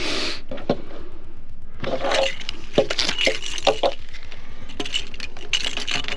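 Clear plastic packaging crinkling and small parts clicking and knocking as they are handled, in three spells of rustling, over a steady low rumble.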